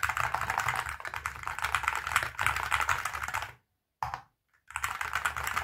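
Fast, continuous typing on the ATK RS6 Ultra, a 65% aluminium-cased keyboard with magnetic Hall effect switches, its keys clacking densely. It cuts off abruptly about three and a half seconds in, with a short burst just after and then resumes near the end.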